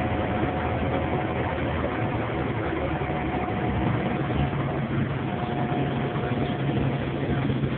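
Steady cabin noise inside a transit vehicle: a low running rumble, with a faint steady whine that drops out briefly about five seconds in.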